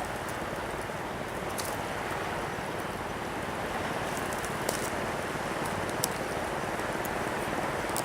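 Campfire burning, with a few sharp crackles and pops over a steady rushing noise.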